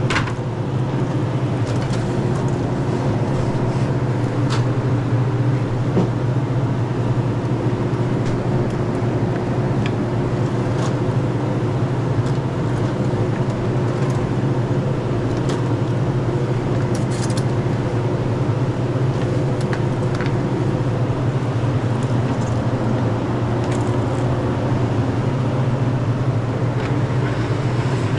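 Steady low hum, with occasional short clicks and light knocks as plastic soda bottles are set onto store shelves.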